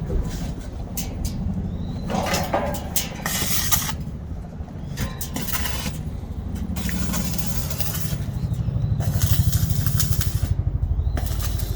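Welding on a stainless steel frame: the arc crackles and sizzles in short bursts over a steady low machine hum that grows louder in the second half.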